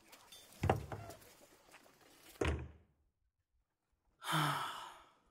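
Carriage door sound effects: a heavy wooden thunk, then a door shutting about two seconds in. After a gap of full silence, a short rushing noise starts and fades away over about a second.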